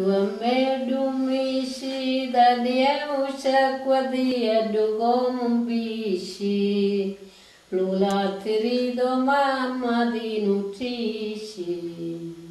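Elderly woman singing a traditional Sicilian lullaby (ninna nanna), unaccompanied. She sings two long phrases with a short breath between them about seven seconds in, and the last note drops lower and fades near the end.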